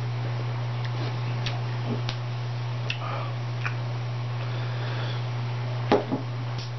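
A steady low hum with scattered small clicks and handling noises as a glass beer bottle is picked up and turned in the hands. A louder knock comes near the end, as the bottle is set back down on the table.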